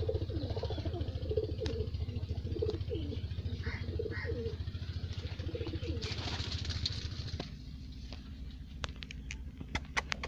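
Domestic pigeons cooing over and over in a loft, with a brief rustling burst about six seconds in, then quieter with a few sharp clicks near the end.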